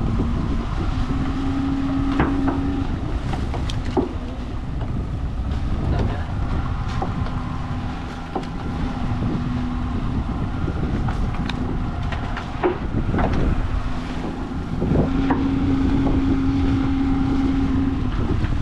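Small fishing boat under way at sea: its engine hums steadily under wind on the microphone and water washing past the hull, with scattered light knocks on board.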